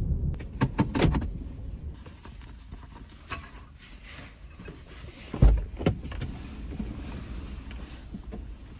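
Inside a car while parking: a steady low engine and road rumble with scattered clicks and handling noises, and a heavy thump about five and a half seconds in, followed by a smaller knock.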